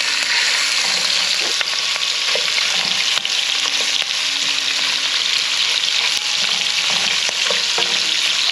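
Sliced smoked sausage sizzling steadily in a scorching-hot frying pan just after going in. A wooden spatula stirs and spreads the pieces, with scattered light scrapes and taps against the pan.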